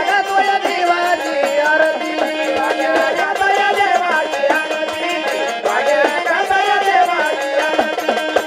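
Marathi gondhal devotional folk music: a bending melody over a steady beat of percussion strokes.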